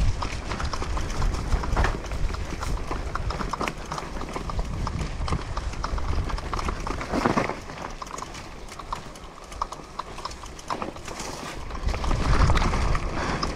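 Enduro mountain bike riding fast down a dirt and leaf-litter singletrack: tyre noise on the dirt with frequent quick knocks and rattles from the bike over bumps, under a steady low wind rumble.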